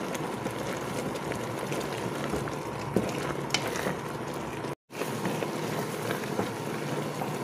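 Peanuts in sugar syrup boiling hard in a thick pressure-cooker pot over a high flame, stirred with a wooden spoon: a steady bubbling hiss with a few light clicks from the spoon and nuts. The sound drops out completely for a moment about five seconds in.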